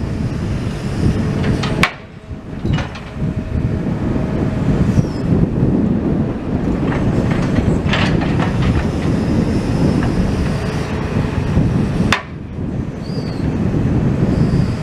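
Demolition machinery rumbling steadily while debris is loaded into a skip, with clattering and a few sharp knocks.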